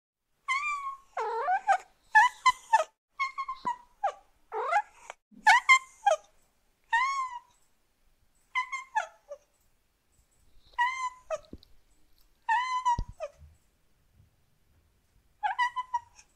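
A cat meowing over and over in short, rising-and-falling meows. They come in a quick run for the first six seconds, then singly or in pairs every second or two.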